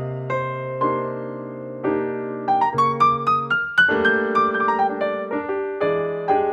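Background piano music: a melody of struck notes over held chords, with a quick rising run of notes around the middle.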